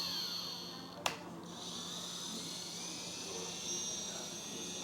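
The hydraulic pump of a 1/14-scale RC hydraulic excavator whines high while the upper body slews. The whine slides down in pitch at first, there is a single sharp click about a second in, and then it holds steady.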